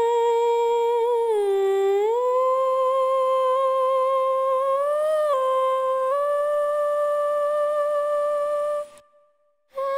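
A high voice humming a slow, wordless melody in long held notes that glide up and down between pitches, breaking off for a moment near the end.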